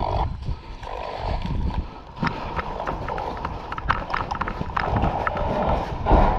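Footsteps of a player moving quickly on a hard floor: a quick, uneven series of knocks starting about two seconds in, over a rough background rustle.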